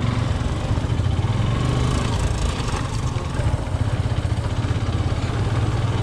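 Yamaha motorcycle's engine running steadily as the bike rides over a rough dirt track.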